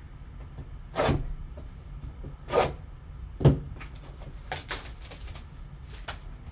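Shrink-wrapped cardboard trading-card box handled and turned over by gloved hands: a handful of short rustles, scrapes and knocks of plastic wrap and cardboard.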